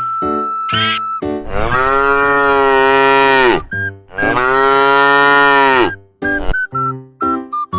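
A cow mooing twice, each a long, drawn-out call that drops in pitch at the end, over bouncy background music with short, clipped notes.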